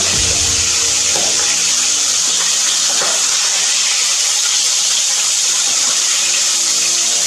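Pieces of katla fish frying in hot mustard oil, a steady loud sizzle.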